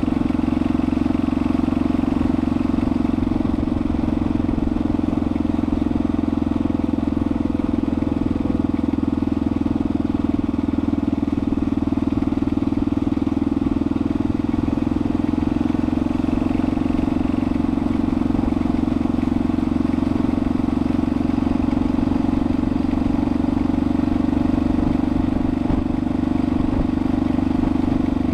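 Yamaha XT600's single-cylinder four-stroke engine running at a steady cruising speed, with no change in revs, mixed with wind rushing over the camera's microphone.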